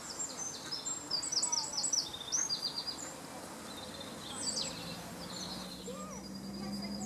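Bird chirping: quick runs of short, high-pitched notes, busiest about one to three seconds in, over steady outdoor background noise. A low steady hum comes in past the middle.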